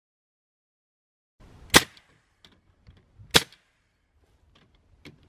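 Bostitch pneumatic nail gun firing twice, about a second and a half apart, driving nails into wooden slats, with faint knocks of the wood and tool being handled between the shots.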